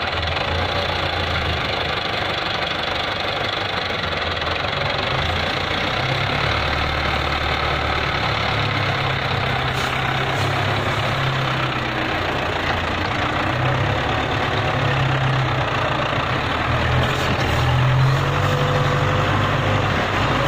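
Belarus 510 tractor's diesel engine running under load as the tractor drives up a sandy slope. Its note rises and falls, and it is a little louder near the end.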